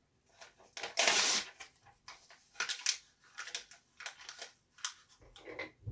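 A printed paper picture bitten and torn with the teeth: a loud rip about a second in, then paper crackling and crinkling in short bursts as it is chewed.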